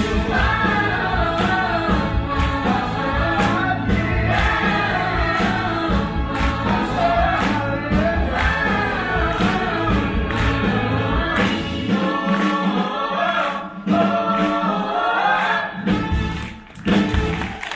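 A cast of singers performing a stage musical number together, many voices over musical backing with a steady beat. The bass drops out about twelve seconds in, and the full sound returns for the song's closing bars near the end.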